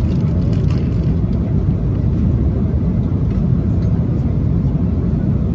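Steady low rumble of cabin noise aboard an Airbus A330 airliner, engines and airflow running evenly.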